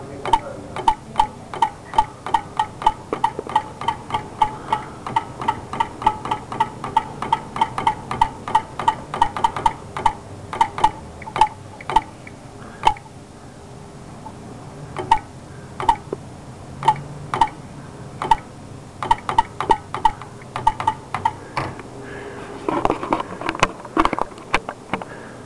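Sharp mechanical clicks, each with a short ringing tone, evenly about four a second for some ten seconds, then sparser and in irregular groups.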